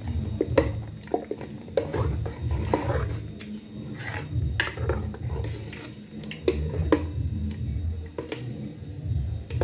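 Metal spoon stirring thick ogbono soup in an aluminium pot: a low churning through the soup, with irregular clinks and scrapes where the spoon meets the pot's sides.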